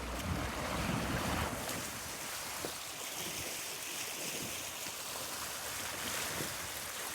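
Steady rush of flowing river water, with wind buffeting the microphone, heaviest in the first second and a half.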